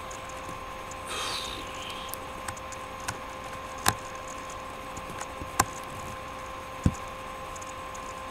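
Scattered sharp computer-mouse clicks, the loudest about four, five and a half and seven seconds in, over a steady electrical hum with a short rustle about a second in.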